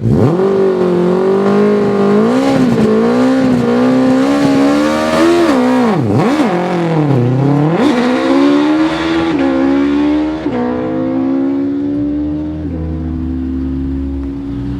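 2000 Future Racer FR race car's engine at hard throttle on a hillclimb run, its pitch swinging up and down through gear changes and lifts for corners, with two deep drops in revs near the middle. After that it pulls steadily, rising in pitch with two quick upshifts and growing somewhat quieter toward the end.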